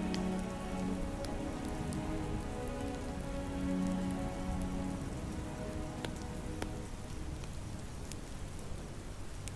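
Steady soft rain with a few sharp crackles, over slow ambient music with long held notes.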